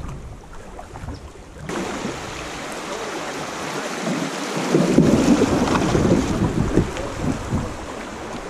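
Rushing river water around a kayak running a shallow riffle. It comes in suddenly about two seconds in and is loudest in the middle.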